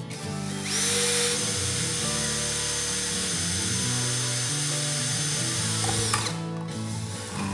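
Electric drill running for about five seconds: it spins up with a rising whine about a second in, runs at a steady high speed, then winds down near the end.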